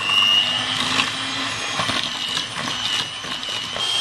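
Electric hand mixer running steadily with a high motor whine, its beaters creaming butter and sugar together.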